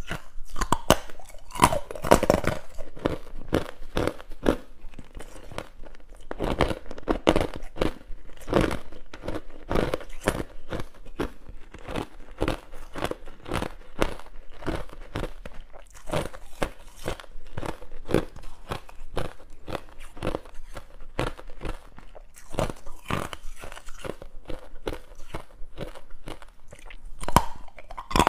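A person biting and chewing hard, clear ice, an unbroken run of sharp, brittle crunches as the pieces crack between the teeth.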